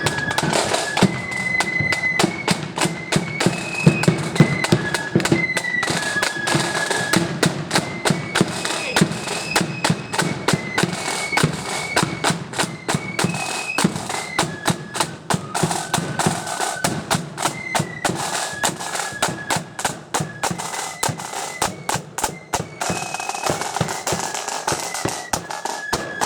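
Marching flute band playing a tune: a row of flutes carrying the melody over a steady, driving beat of snare and bass drums.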